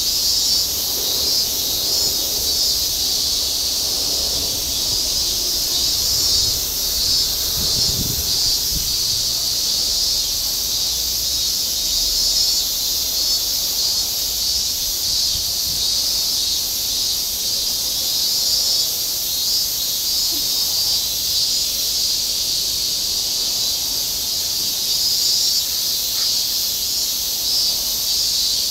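Steady, high-pitched, pulsing drone of a cicada chorus in summer trees.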